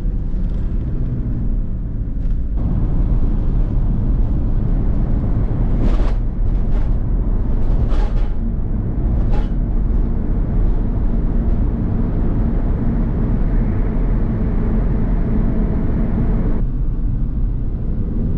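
Vehicle driving: a steady engine rumble with road noise. The noise gets louder about two and a half seconds in and drops back near the end, with a few sharp knocks in the middle.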